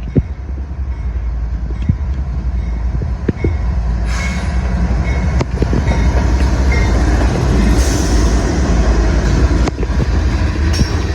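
CSX freight train rolling past with a heavy steady rumble and scattered sharp wheel clicks over the rail joints. It grows louder and harsher from about four seconds in.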